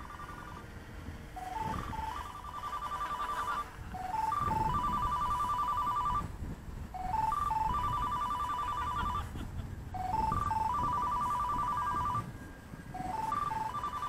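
An electronic alert tune repeating about every three seconds: a few quick rising beeps, then a fast trilling tone, over low wind rumble on the microphone.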